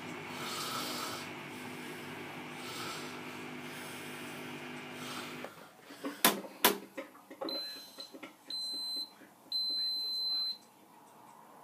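Indesit Innex BWE91484 washing machine at the end of its cycle: the drum motor hums with a swishing of the turning drum, then stops about halfway through. Two sharp clicks follow, then three high electronic beeps, the last one longer, signalling that the programme has ended.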